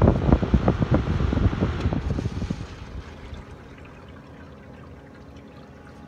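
LG window air conditioner's fan blowing air across the microphone in a rushing, buffeting noise that falls away about two and a half seconds in, leaving a steady low hum.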